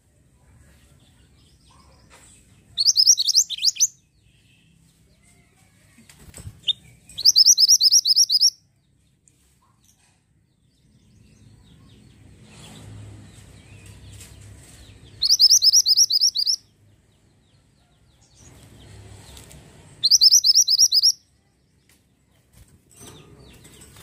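A caged mantenan gunung (kuniran) songbird singing four short, loud trills of rapid repeated high notes, each about a second long, with a single note between the first two. Near the end there is a brief flutter of wings as the bird leaves its perch.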